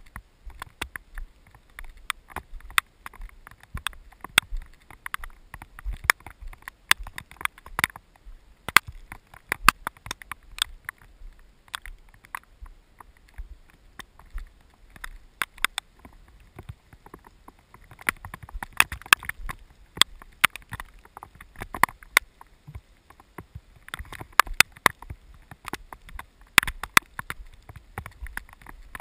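Dense, irregular sharp clicks and knocks, several a second with no steady rhythm, over a low rumble of wind on the microphone.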